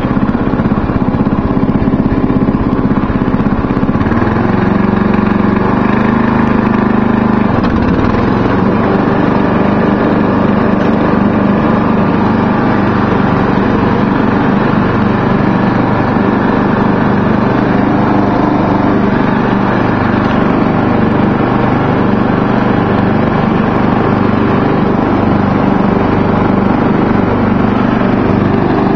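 Murray riding lawn mower's engine running loud and steady while cutting grass. Its note shifts briefly about four to seven seconds in, then settles.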